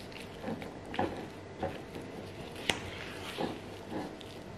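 Silicone spatula stirring a thick ricotta and mascarpone cream with icing sugar in a bowl: soft wet scrapes and squelches every half second or so, with one sharp tap against the bowl about halfway through.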